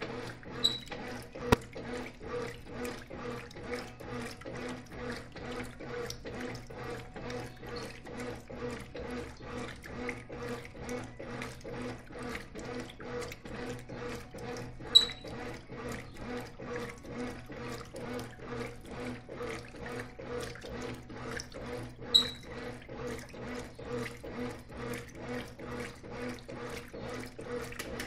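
Brastemp Clean top-load washing machine agitating two duvets in water: even, rhythmic sloshing over a steady motor hum. A few brief high chirps and one sharp click stand out above it.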